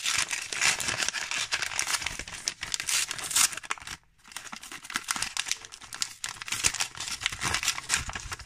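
Paper gift wrap being torn and crumpled by hand as a small package is unwrapped: crackly rustling with a short pause about four seconds in.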